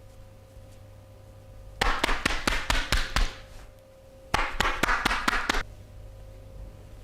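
Hands striking a person's body in quick massage percussion: two bursts of sharp slaps, about five a second, each burst lasting a little over a second.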